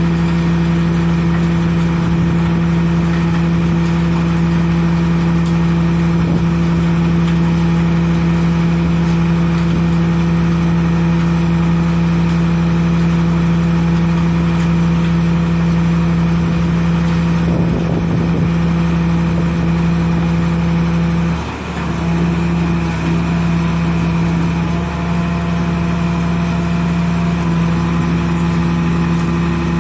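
Trailer-mounted RB 5000 baler running steadily: a constant mechanical hum with a strong, unchanging low tone. The hum dips briefly about two-thirds of the way through, then carries on.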